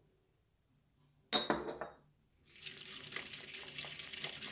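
A single sharp, ringing clink, then from about halfway through a wire whisk rattling fast and steadily against a glass mixing bowl as thin liquid is whisked.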